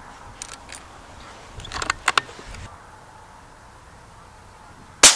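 A few light clicks and knocks, then near the end a single sharp rifle shot from a Savage LRPV in .204 Ruger, its report ringing on afterwards.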